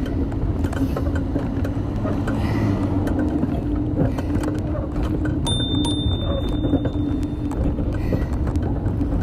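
Wind rumbling on a handlebar-mounted phone's microphone as a bicycle rides along a paved street, with tyre and road noise, a steady low hum, and frequent small rattles and knocks as the bike goes over the surface.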